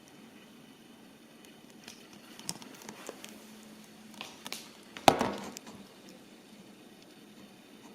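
A few light taps and clicks, then one sharp knock about five seconds in with a brief rattle after it.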